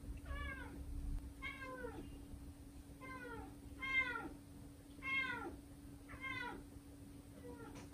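British Shorthair kitten meowing over and over: about seven short meows, roughly one a second, each falling in pitch, the last one faint.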